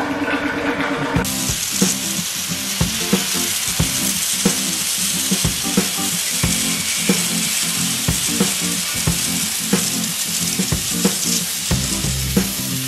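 Cutting torch cutting through steel plate: a steady hiss with rapid, irregular crackling pops, starting about a second in.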